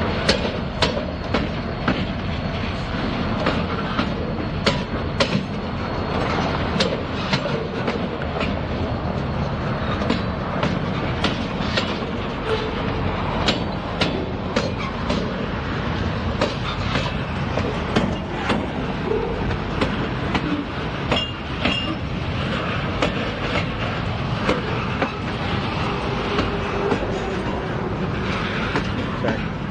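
Loaded freight train of steel-carrying flatcars rolling past, the wheels clicking over rail joints in an irregular series of sharp clacks over a steady rumble.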